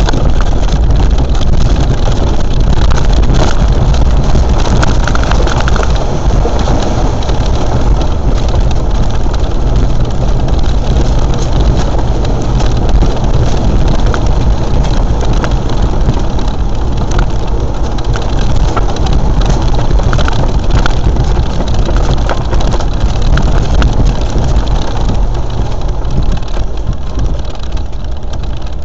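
Land Rover driving off-road, its engine running steadily under a heavy low rumble, with frequent small knocks and rattles.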